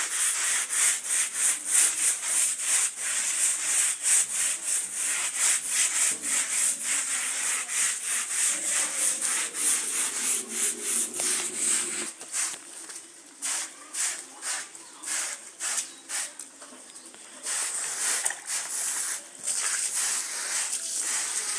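A carpet being scrubbed by hand with a brush, in quick back-and-forth strokes about two or three a second. About halfway through, the strokes thin out to separate, quieter ones, then pick up again near the end.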